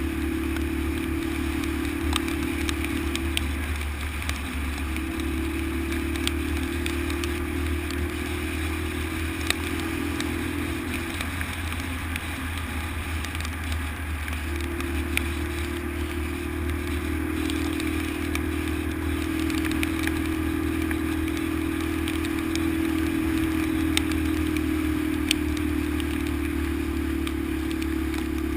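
Honda XL125's single-cylinder four-stroke engine running under way, its steady note easing off briefly about four seconds in and again for a few seconds around the middle. Scattered sharp clicks and rattles come through over the engine.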